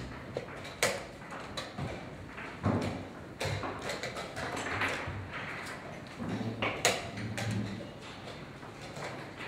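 Sharp, scattered wooden clicks and taps of chess pieces being set down and chess clock buttons being pressed, a handful of separate knocks over a few seconds against a low hum of a busy hall.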